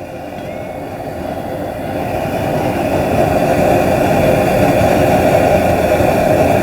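Pot of water at a hard boil on a burner: a steady rushing roar that swells over the first three seconds or so, then holds level.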